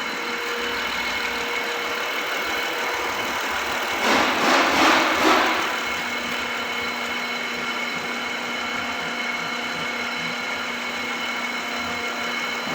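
2014 Honda Accord's V6 engine idling steadily and quietly, without the knocking that a leaking, slack timing belt tensioner had caused, now that a Honda Pilot V6 tensioner is fitted. A brief louder rush of noise comes about four seconds in.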